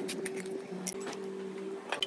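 A few metallic clinks of hand tools on a cast-iron gearbox housing: one sharp clink at the start, then fainter ones about a second in and near the end, over a steady low hum.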